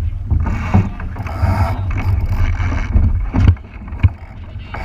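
Small boat moving on water: a steady low rumble of wind on the microphone with water rushing and splashing against the hull, and a few sharp knocks, one about a second in and two near the end.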